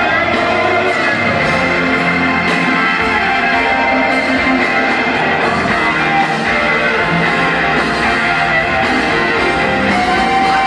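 Live rock band playing in an arena, with an electric guitar to the fore holding long notes over the band.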